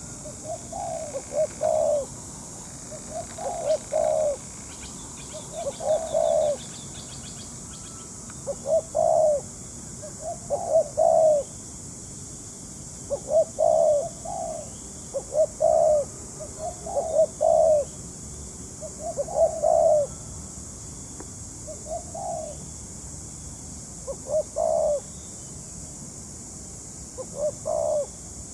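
Spotted dove cooing, a run of short, low coo phrases repeated every second or two.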